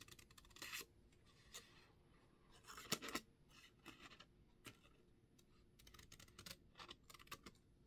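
Small scissors snipping paper in faint, scattered short cuts, the loudest about three seconds in and several more close together near the end.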